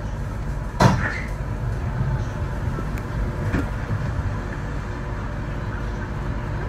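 Steady low rumble of a rubber-tyred Sengkang LRT train (Mitsubishi Crystal Mover) running, with a sharp clunk about a second in.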